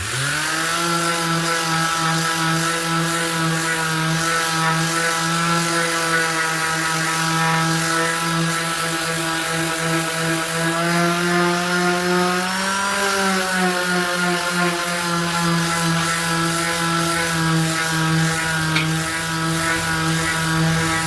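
Bosch GSS 1400 Pro electric orbital sheet sander switched on, spinning up quickly and then running with a steady buzzing hum while sanding a flat wooden surface with sandpaper. About halfway through, its pitch rises briefly and then drops back to the steady note.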